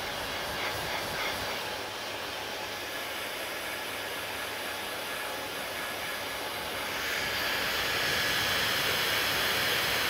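Hand-held hair dryer blowing steadily, a constant rush of air and motor that gets louder and hissier about seven seconds in.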